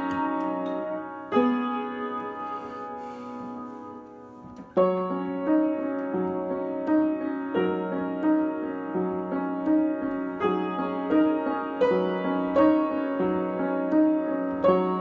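Solo piano playing. A chord struck about a second in is held and left to fade for a few seconds, then a steady, evenly paced pattern of repeated notes starts just before the five-second mark and runs on.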